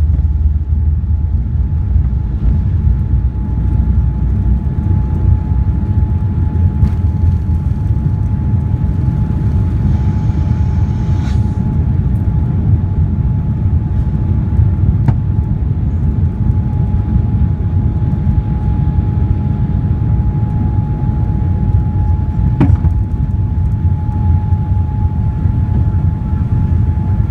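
Boeing 787-9 cabin noise during takeoff: a loud, steady low rumble of engines and airflow with a steady hum on top, and a few faint clicks.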